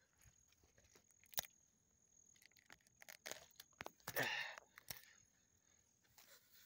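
Faint rustling and a few sharp snaps of grass and weeds being cleared from the ground, with a louder brushing rustle about four seconds in.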